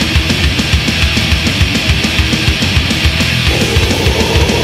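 Thrash metal recording: loud, fast drumming with quick, evenly spaced kick-drum strokes under a dense band sound, with a new layer joining about three and a half seconds in.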